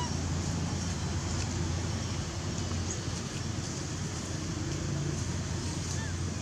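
Steady low rumble of background noise, like distant road traffic, with two faint short chirps, one at the very start and one near the end.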